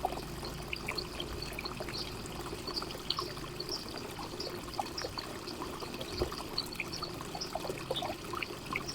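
Garden fountain water trickling and splashing steadily, with many small droplet plinks scattered through it.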